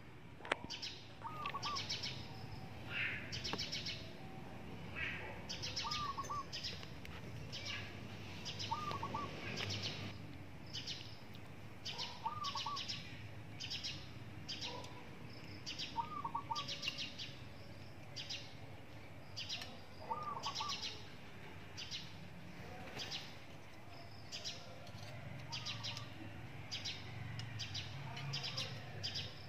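Birds chirping steadily in quick, high repeated notes, with a lower, looping two-note call every three or four seconds.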